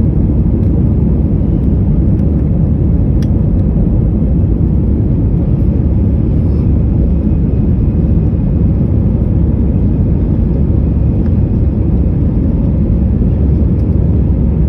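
Steady low rumble of engine and airflow noise inside the cabin of an Airbus A320-family jet airliner climbing out after takeoff.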